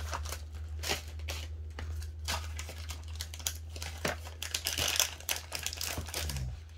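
Irregular plastic crinkling and rustling as a diamond painting canvas and its plastic cover film are handled, over a steady low electrical hum.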